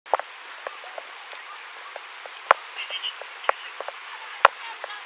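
Steady background hiss with scattered light ticks and two sharp knocks, about two seconds apart, from the footsteps and gear of an officer walking with a chest-worn body camera.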